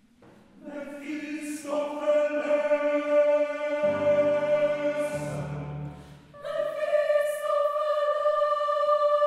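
A choir singing long held chords in two phrases, the second beginning about six and a half seconds in.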